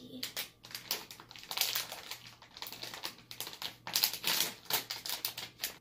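Clear plastic cookie bag crinkling and crackling in quick, irregular rustles as it is handled and pulled open.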